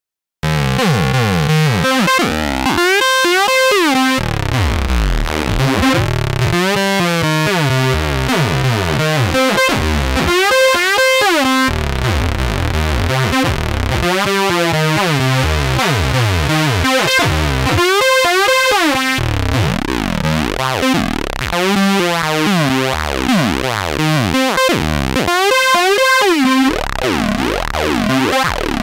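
Squeaky, whiny 303-style synth line from FL Studio's 3xOsc saw waves, with gliding slide notes, run through Fruity Fast Dist and Fruity Flanger. It starts about half a second in and loops about every four seconds. The flanger sweeps through it, its delay, depth and feedback being turned up while it plays.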